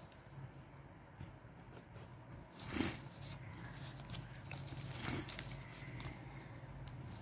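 Felt-tip marker scratching across paper along a straightedge in two short strokes, about three seconds and five seconds in, with small taps of hands and the plastic case, over a faint steady low hum.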